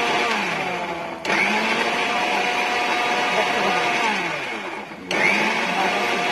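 Electric mixer grinder running, blending a thin batter in its steel jar. Twice the motor is let off and winds down with falling pitch, then switched back on with a sudden jump in sound: about a second in, and again about five seconds in.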